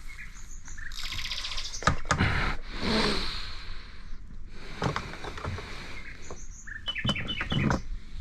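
Small birds chirping, with a short buzzy trill, over a few knocks and handling noises.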